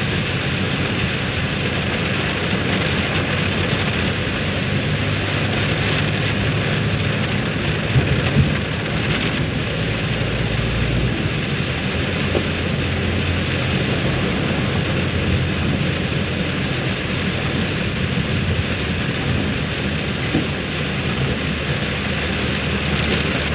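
Heavy rain falling on a car's roof and windshield, heard from inside the cabin as a steady dense hiss with a low hum underneath.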